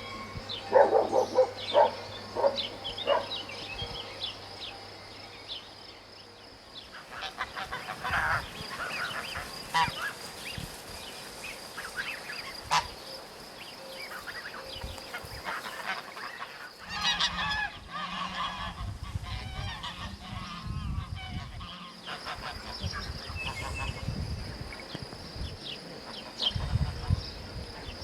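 Geese honking in short, repeated calls, loudest near the start, over a steady high chirring of insects; a low rumble joins in the second half.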